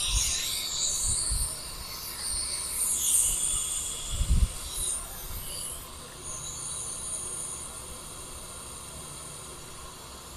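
R11 flushing solvent hissing as it is fed from its cylinder through a charging hose into an air conditioner's refrigerant line, to flush out the black debris of a burnt-out compressor. The high hiss wavers at first and settles steadier in the second half, with a dull thump about four seconds in.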